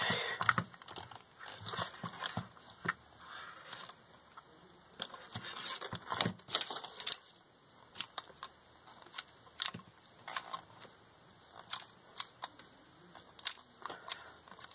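Handling noise from a small plastic RC car chassis being held and turned by hand: irregular light clicks, taps and rustles.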